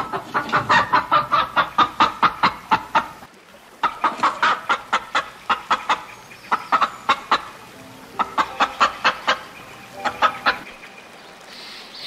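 Rooster clucking: rapid runs of short, sharp clucks, about five a second, in several bursts separated by brief pauses, stopping well before the end.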